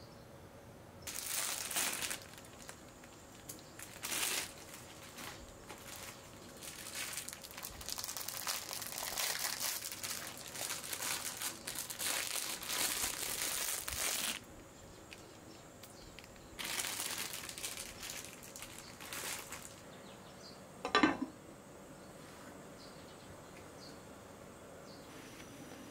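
Plastic packaging crinkling and rustling in several bursts as packs of udon noodles are opened and handled. Then a single sharp clink about three-quarters of the way through, as a ceramic lid is set on the clay pot.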